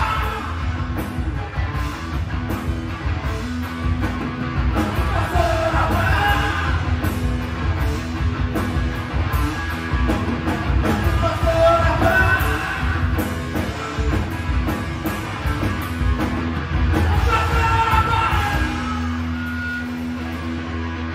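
Live rock band playing electric guitar, electric bass and drum kit, with sung vocal phrases over a steady drum beat. About nineteen seconds in the drums drop out, leaving held guitar and bass notes ringing.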